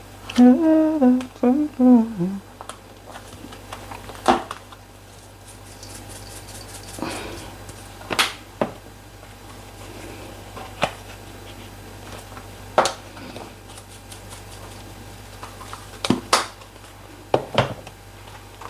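A woman humming a short tune for about two seconds. Then come scattered sharp clicks and knocks, about nine of them, from seasoning containers and utensils being handled while chicken is seasoned.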